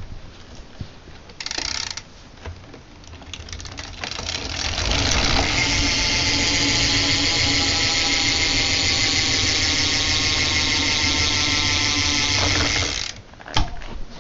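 Stock BMX rear hub's freewheel pawls ratcheting as the back wheel spins freely: a few scattered clicks at first, then a loud, steady, fast buzz of clicks from about four seconds in that cuts off suddenly near the end.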